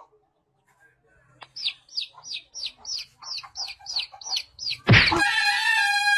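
Baby chick peeping sound effect played through a phone speaker: a run of about a dozen short, sharply falling high peeps, about three a second. Near the end a single loud thump, and then music starts.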